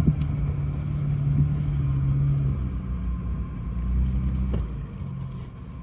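Off-road 4x4 engine running at low revs as the vehicle crawls the trail, a steady low drone that eases off about three-quarters of the way through.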